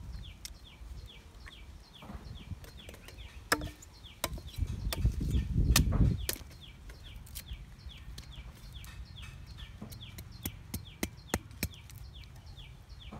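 A knife chopping and shaving the rind off a stalk of purple sugarcane: a series of sharp, irregular clicks and cuts. A high chirp repeats about three times a second in the background.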